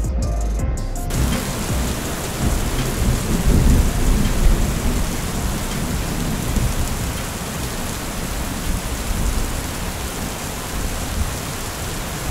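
Gale-force storm wind: a steady roar of noise with heavy low rumbling gusts, strongest around four seconds in. It starts after about a second of background music.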